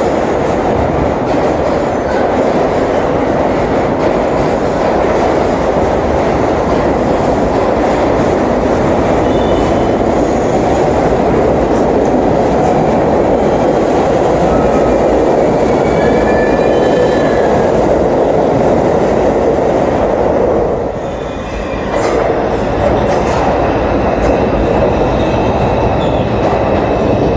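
New York City subway trains of R62A and R142 cars moving through the station, a dense steady rumble of steel wheels on rails with brief faint wheel squeals. The sound dips briefly about three-quarters of the way through, then another train sweeps past close by.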